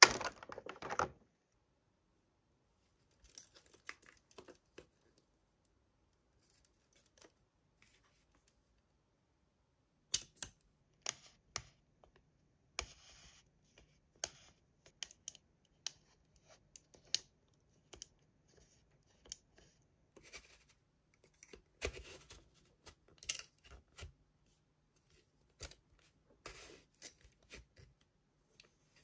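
Hands handling and opening toy packaging: scattered sharp clicks, scratches and short rustles, sparse at first, then coming more often after a quiet gap of several seconds.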